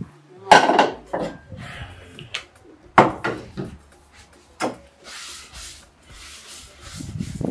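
Wooden kitchen utensil rubbing and scraping, with a few sharp knocks: one about half a second in, one at three seconds and one near five seconds, then a stretch of scraping.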